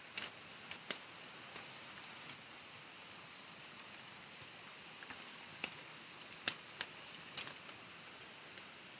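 A handful of short sharp clicks and snaps, a few near the start and a cluster a little past the middle, over a steady outdoor background hiss with a faint high steady tone.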